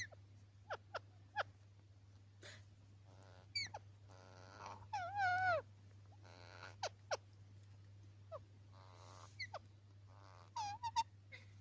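Pet parrot calling: a string of short sharp chirps and squawks, with a loud wavering, falling screech about five seconds in and a quick burst of calls near the end. A steady low hum runs underneath.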